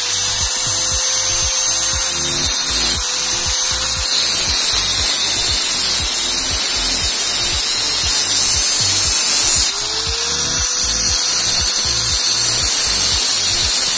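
Angle grinder cutting through a steel bicycle sprocket, a steady high grinding hiss with brief breaks where the disc lifts off and the motor's whine rises. Background music with a steady beat plays along.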